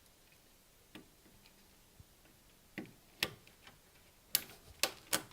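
Scattered small clicks and taps of a wire being handled and seated in a Cat6 patch panel's terminal block, with a cluster of sharp snaps near the end from the Krone punch-down tool terminating it.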